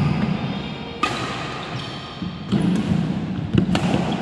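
Badminton racquets striking a shuttlecock in a fast rally, sharp cracks right at the start, about a second in, and twice in quick succession near the end, over players' shoes thudding and squeaking on the wooden court floor.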